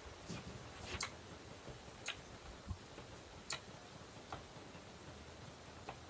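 Faint, irregular clicks over a low hiss: about six short ticks spread unevenly, the sharpest about a second in.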